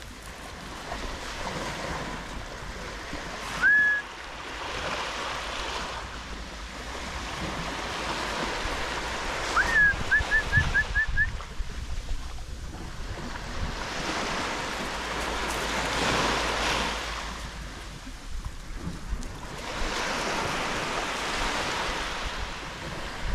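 Sea waves washing onto the shore, swelling and receding every few seconds, with wind buffeting the microphone. A short rising high note sounds about four seconds in, and a quick run of about six short high notes comes around ten seconds in.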